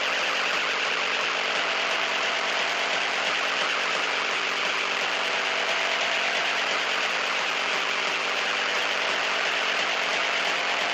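Harsh noise music: a continuous wall of dense distorted noise, steady in level, with a fast, jittery churning underneath.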